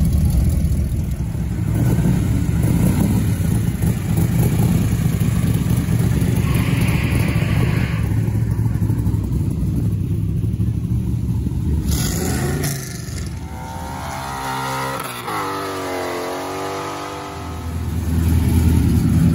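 Hot-rod pickup's exposed V8 engine rumbling loud and deep as it drives past and pulls away. The rumble drops off about twelve seconds in, giving way to a quieter, wavering higher-pitched tone for a few seconds, before another car's engine rumbles loudly close by near the end.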